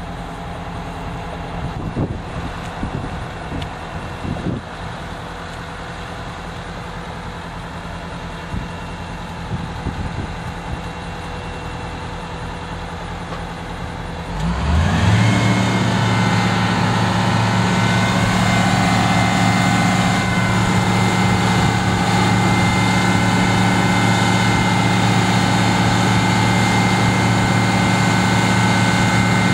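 Fire truck's diesel engine idling, with a few light knocks in the first seconds. About halfway through, the engine speeds up and holds a higher, louder steady note, with a steady whine on top.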